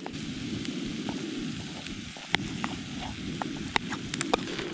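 PocketRocket gas canister stove burning steadily under a frying pan of sizzling trout and rice. A metal spoon clicks and scrapes against a small metal pot a dozen or so times as rice is scooped out.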